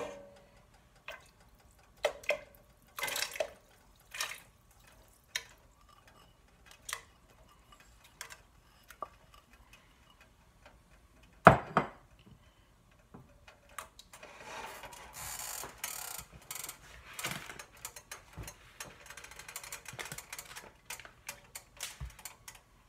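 Sliced carrots tipped from a ceramic bowl into a stainless steel pot of broth: scattered knocks and plops, one loud clunk about eleven seconds in, then several seconds of steadier sloshing and rustling.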